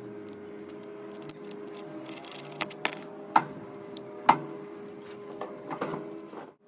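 A series of sharp clicks and taps, about half a dozen spread irregularly through the middle, the loudest a little over four seconds in, over a steady low hum.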